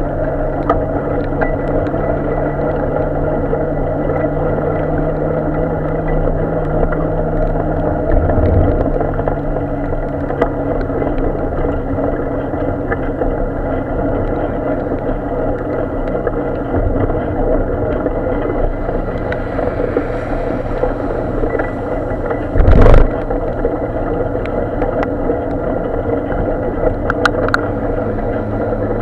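Steady road and traffic drone heard from a camera on a bicycle riding along a wet street beside a queue of cars and trucks, with a short loud knock about 23 seconds in.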